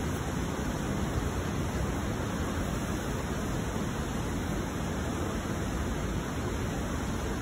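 Steady, even rushing noise with no voices, strongest in the low end.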